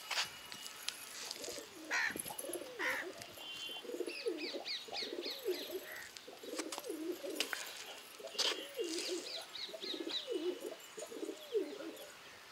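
Domestic pigeons cooing over and over, one low coo after another about every second, with quick high chirps from another bird and a few sharp clicks.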